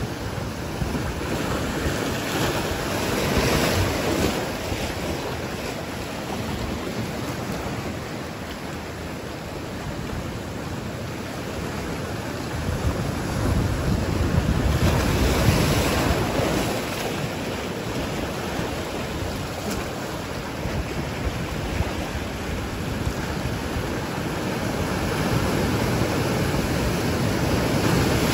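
Ocean surf washing over and breaking against shoreline rocks in a continuous roar that swells with each wave, about every twelve seconds, loudest about halfway through. Wind buffets the microphone.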